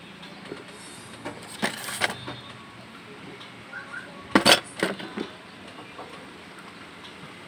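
Steady outdoor background noise broken by a few sharp clicks and knocks, loudest in a quick cluster about four and a half seconds in.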